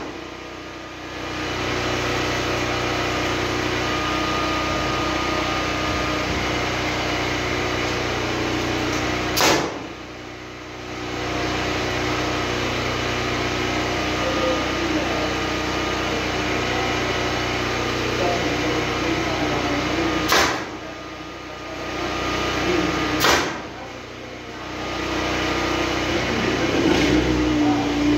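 Nail gun firing nails into overhead wood blocking between ceiling joists: three loud sharp shots, about nine seconds in, about twenty seconds in and again three seconds later, with a fainter one near the end. A steady machine hum runs underneath.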